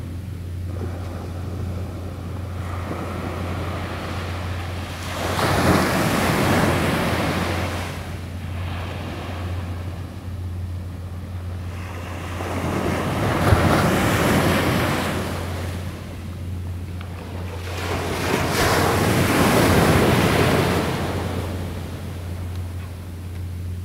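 Surf breaking on a beach: three waves rush in and fade, roughly every six to seven seconds, over a steady low rumble.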